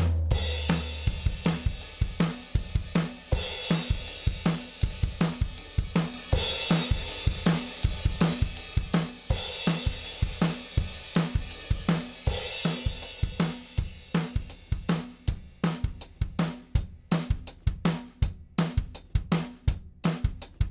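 Recorded drum kit playing a steady beat of kick, snare and hi-hat, with a crash cymbal about every three seconds. A low held bass note sounds in the first couple of seconds. From about two-thirds of the way in, the crashes stop and the beat thins to drums and hi-hat alone.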